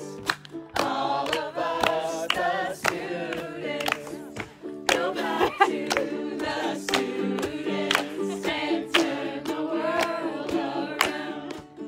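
A group of voices singing a campfire song together, with a sharp beat about twice a second.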